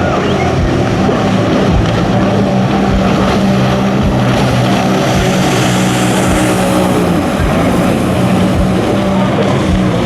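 Jet ski engines running at race speed on the water, a steady engine note that shifts slightly in pitch as the craft work through the course, over the hiss of water and spray.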